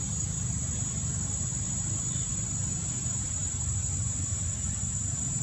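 Steady outdoor ambience: a continuous high-pitched insect drone, with an even low rumble beneath it.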